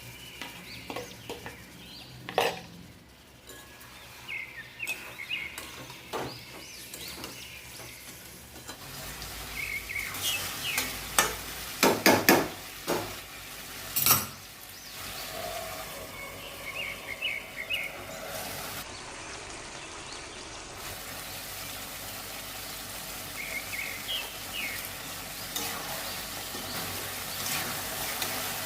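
Food frying in a pan while a utensil stirs it. The sizzle grows louder about a third of the way in, and there are several sharp knocks of the utensil against the pan in the middle. Birds chirp faintly in the background.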